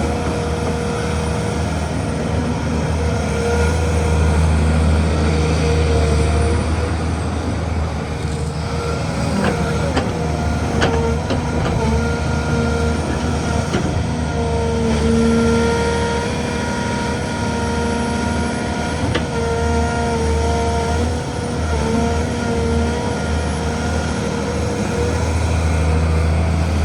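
Matador hydraulic excavator working: its diesel engine runs under load with a heavy low drone and a hydraulic whine that shifts in pitch, with a few sharp knocks from the bucket and boom.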